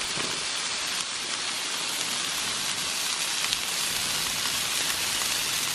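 Potatoes frying in oil in a cast iron skillet, sizzling steadily with faint scattered pops.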